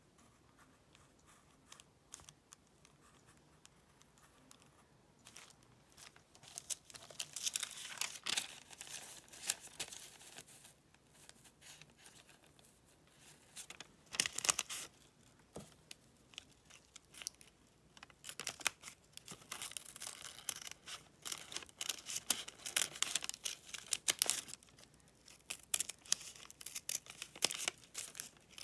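Paper crinkling and rustling as pattern paper is handled and lifted, in irregular spells, with small scissors snipping through a paper pattern piece near the end.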